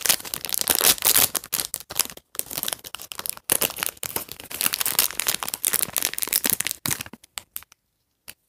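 A small accessory bag from a toy box being torn open and crinkled by hand: dense crackling and rustling that stops about three quarters of the way through.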